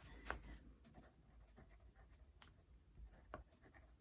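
Near silence with a few faint, light ticks and scratches from a diamond painting kit's packaging being handled on a table.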